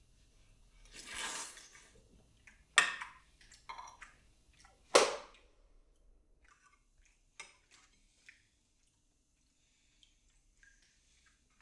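A metal spoon clinking against a ceramic soup plate while eating soup: two sharp loud clinks about two seconds apart, with lighter taps and scrapes around them. About a second in comes a longer wet slurping sound of soup being sipped.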